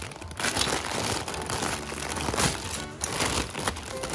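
Thin plastic bag crinkling as hands pull a metal wall-mount bracket out of it, over background music.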